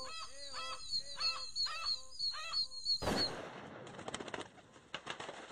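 Dove-like cooing calls, repeated about twice a second, that stop about three seconds in with a sudden loud burst of noise, followed by a rustling flutter of wings as the birds fly off.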